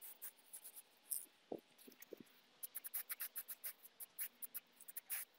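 Eurasian magpies chattering, a faint run of rapid dry rattling calls several a second, with a short hiss of an aerosol spray can now and then.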